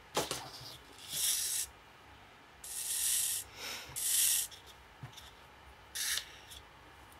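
Several short bursts of rustling and rubbing as a sheet of cardstock is handled and cotton thread is drawn through its punched holes.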